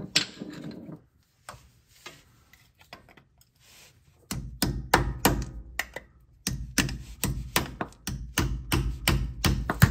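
Sharp metallic taps, about three a second from about four seconds in, as a putty knife is driven in behind the cast front differential cover of a Dana M60 axle to break the gasket-maker seal.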